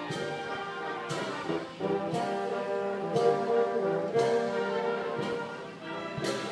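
Waltz music led by brass instruments, with held chords and a sharp percussive accent about once a second.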